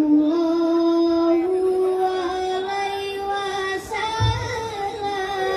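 A boy singing sholawat, the Islamic devotional chant, solo into a microphone over a PA, drawing out long held notes that step slightly upward. He takes a quick breath about four seconds in, with a brief low thump just after.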